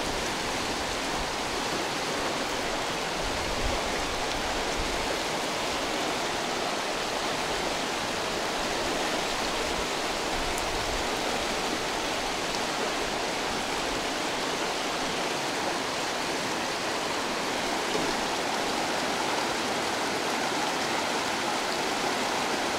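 Fast mountain river rushing: a steady, even sound of flowing water.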